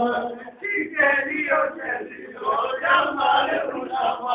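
Male voices singing, with short breaks between phrases.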